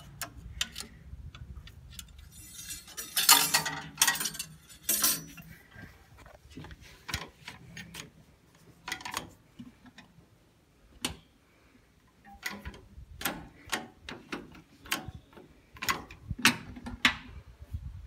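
Scattered metallic clicks and clinks of a 1979 Ford 3600 tractor's hand controls and levers being worked by hand, with the engine not yet running, ahead of a cold start. A louder cluster of three rattles comes about three to five seconds in.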